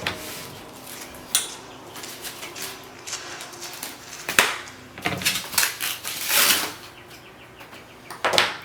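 Scattered light knocks, clicks and rustles from parts and packaging being handled, with a sharp click about four seconds in and a cluster of knocks after five seconds.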